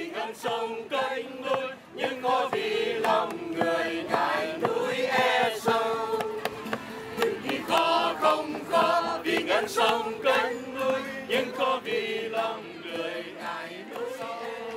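A small mixed group of men and women singing together in unison, accompanied by a strummed acoustic guitar.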